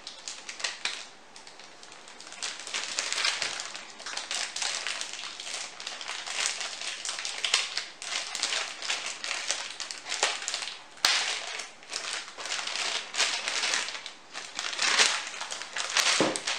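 Motherboard's plastic anti-static bag crinkling and crackling steadily as the board is worked out of it by hand, with a couple of sharp clicks along the way.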